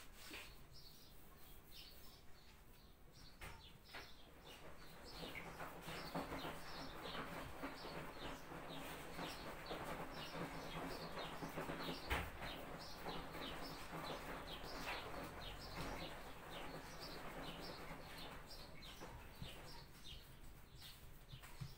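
Faint chirping of small birds: many short chirps a second, busiest in the middle stretch. A single soft knock about halfway through.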